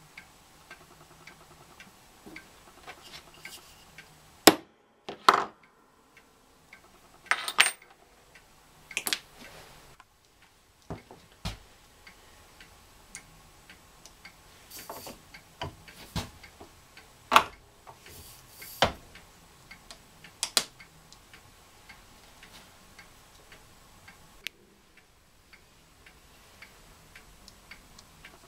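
Scattered, irregular clicks and sharp metallic clacks of small metal clamps and tools being handled and set into a hand-lever bench punch press, with a few louder knocks among the lighter ticks.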